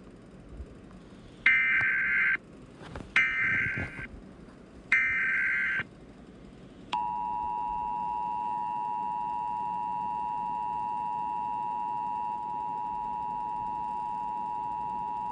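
Emergency Alert System tones: three bursts of SAME header data, about a second each and roughly a second and a half apart. Then the EAS two-tone attention signal, a steady two-note tone, starts about seven seconds in and holds to the end.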